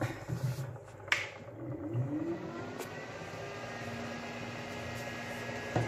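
A small square electric fan is switched on with a click. It spins up with a rising whine, then runs with a steady whir.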